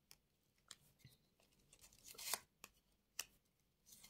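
Playing cards being handled and laid on a table: a few faint clicks and a soft swish of a card about two seconds in, with near silence between.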